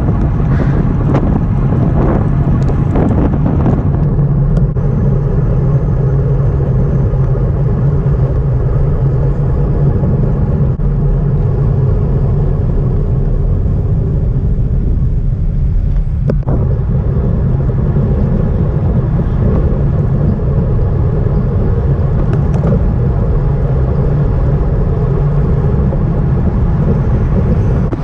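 Steady low rumble of wind buffeting the microphone and road noise while riding a road bicycle, with a few faint clicks.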